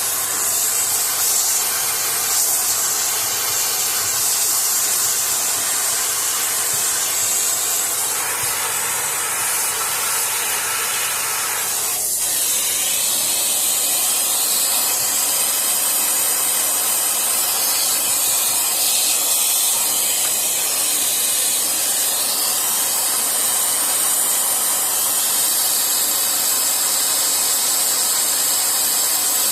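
Compressed air blowing dust out of a laptop's cooling fan and heatsink: a loud, steady hiss with one very brief break about twelve seconds in.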